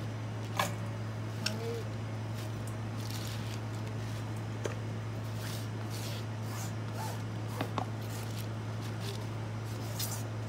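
Chopped napa cabbage being gathered by gloved hands and dropped into a stainless steel bowl: soft, crisp leaf rustles with a few light taps, over a steady low hum.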